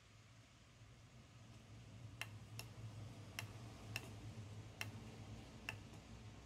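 Small tactile push-button switch on a soldered LED badge circuit board clicking as it is pressed, six short sharp clicks spread over about three and a half seconds, starting about two seconds in. A low steady hum lies underneath.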